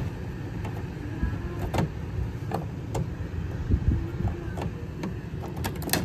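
Handling noise: a braided stainless-steel water supply line rubbing as it is fed through a plastic wall-box flap, with several short clicks and a knock from the plastic, over a steady low rumble.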